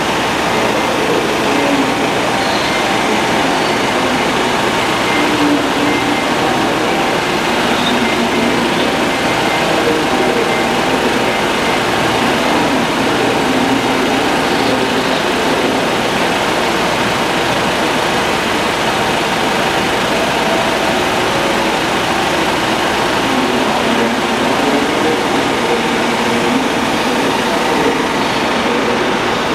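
Underfloor diesel engines of a Northern Rail Pacer diesel multiple unit running steadily, a continuous even drone.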